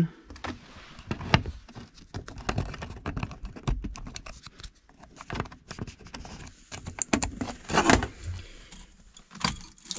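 Irregular small clicks, taps and rattles of hands fumbling at a car's centre console, pushing an SD card into the slot of a Holley Sniper EFI handheld.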